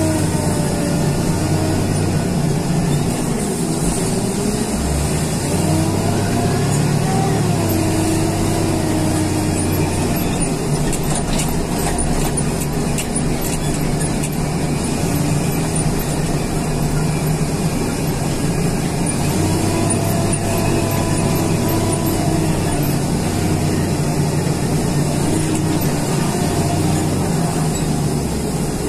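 John Deere front loader's diesel engine running under load, heard from inside the cab, its pitch rising and falling as it drives and lifts the loaded bucket. A few faint clicks midway.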